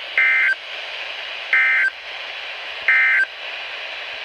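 NOAA Weather Radio Emergency Alert System end-of-message code: three identical short buzzy SAME digital data bursts, each about a third of a second long and about 1.3 s apart, over steady radio hiss. They signal the end of the alert broadcast.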